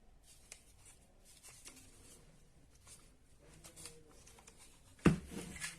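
Hands handling tools and small parts on a workbench: faint scattered clicks and rustles, then one sharp knock about five seconds in, followed briefly by a light rattle.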